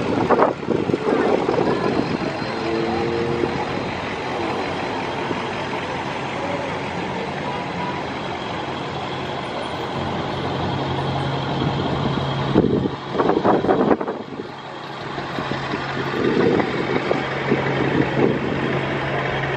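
Pickup trucks driving slowly past one after another, engines running, with a steady low engine drone from about halfway through. A few loud rushes of noise come about 13 seconds in.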